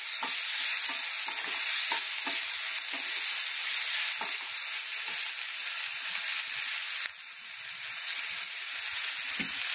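Chopped onion, capsicum and tomato sizzling in oil in a nonstick kadhai while being stirred, the wooden spatula scraping and tapping against the pan. The sizzle dips suddenly about seven seconds in and then builds back up.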